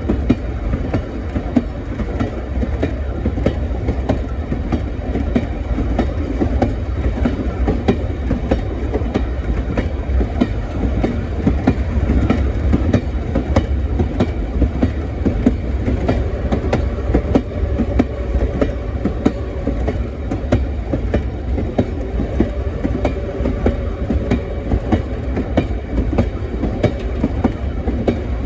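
Train rolling along jointed track: a steady low rumble with wheels clicking and clacking over the rails. A faint steady whine joins about halfway through.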